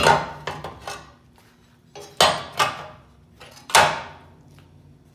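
Rusty steel shock mount bracket clanking against a car frame rail as a gloved hand moves it: a cluster of metal knocks at the start, two more a little after two seconds and the loudest near four seconds, each ringing briefly.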